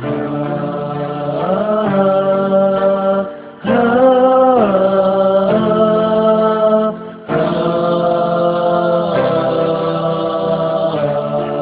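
Background music: an Islamic nasyid sung with long held vocal notes, breaking off briefly about three and a half and seven seconds in.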